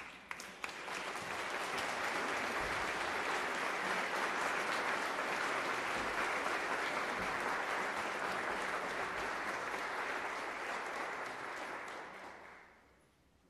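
Audience applauding, starting from a few scattered claps and swelling into steady clapping that dies away about a second before the end.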